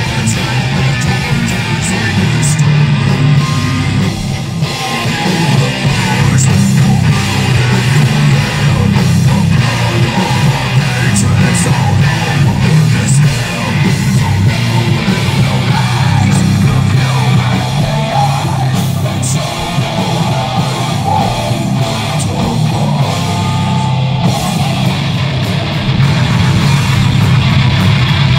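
Live heavy metal band playing loud, with electric guitars over a drum kit and crashing cymbals.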